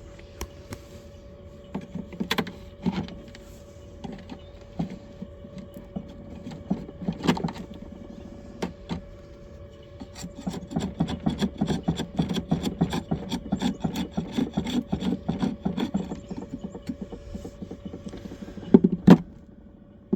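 Wooden beehive frames being scraped and pried loose, with scattered clicks, a dense stretch of rapid scraping strokes in the middle and a sharp knock near the end, over a faint steady hum.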